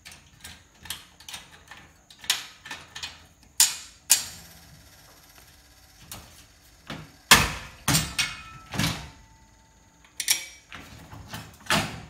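Irregular metal clinks and clanks as bolts and nuts are taken out of a steel garage door track bracket and the curved steel track rail knocks against it, some with a short metallic ring; the loudest clank comes about seven seconds in.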